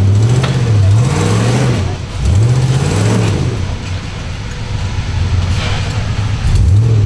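Rock-crawler buggy engine revving up and down in several short blips of throttle as it works the tyres over a rock ledge.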